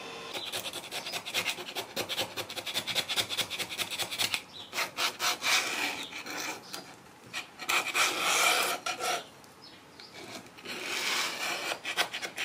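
Clear protective film being peeled off a Creality Ender 3 flexible build sheet, worked loose with a small scraper: a stream of rapid scratchy crackles and rasping, louder in spells.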